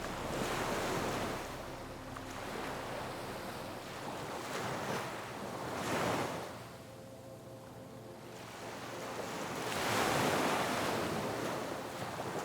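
Ocean waves surging onto a shore, three swells that rise and fall about every four to five seconds, the last one the loudest.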